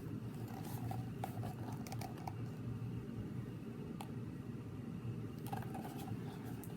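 Faint rustles and a few soft clicks of picture-book pages being handled, over a low steady room hum.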